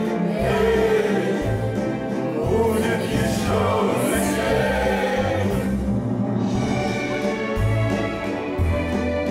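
Orchestral music with a choir singing.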